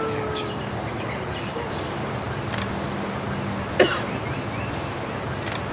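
Outdoor background noise with a steady low hum, two thin sharp clicks and one louder knock just under four seconds in.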